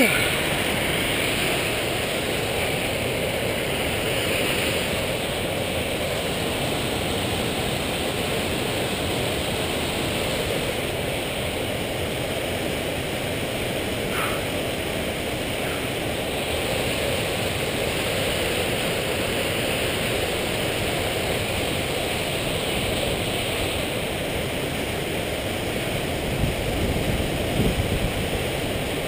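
Creek water rushing steadily. A few brief low rumbles come near the end.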